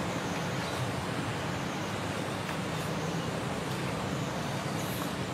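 Steady background noise: a low, even rumble under a broad hiss, with no distinct events.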